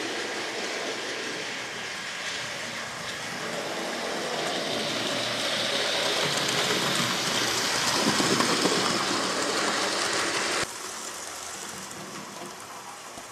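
Hornby OO-gauge Hogwarts Express model locomotive (5972 Olton Hall) running along the layout track with its coaches, its electric motor whirring and its wheels rattling on the rails. The sound grows louder as the train comes close, then cuts off abruptly about ten and a half seconds in.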